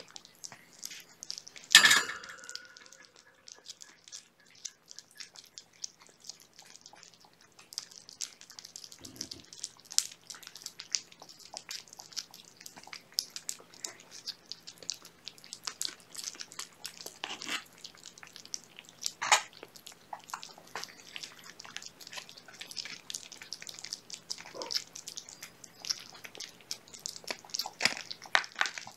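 Young kittens eating wet cat food off a plate: many small, irregular wet chewing and lapping clicks. A sharp clank with a brief ring about two seconds in is the loudest sound.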